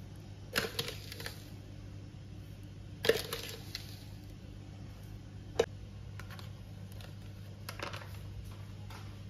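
A metal spoon scooping sugar from a plastic jar and tapping against a metal measuring cup: a few short scrapes and clinks, the sharpest about three seconds in, over a steady low hum.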